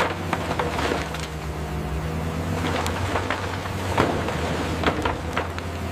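Excavator diesel engines running with a steady low hum, under repeated sharp cracks and clanks of concrete rubble being broken and moved by the buckets and grapples.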